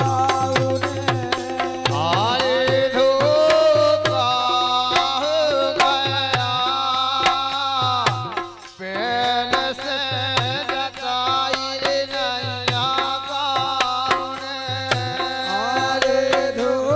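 Bundeli Rai folk music: a dholak beat and manjira strikes under a held, layered melody line with some singing. The music drops out briefly about eight and a half seconds in, then starts again.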